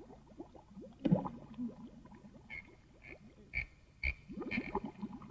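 Cartoon underwater bubbling effect: a stream of small quick bloops. A few short high notes sound through the middle, with two soft low thumps about half a second apart.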